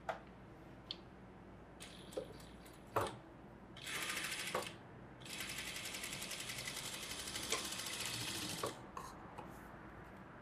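Industrial flat-bed sewing machine stitching fabric: a short run of rapid, even needle strokes about four seconds in, then a longer steady run of about three and a half seconds. Scattered clicks and taps come before and after the runs.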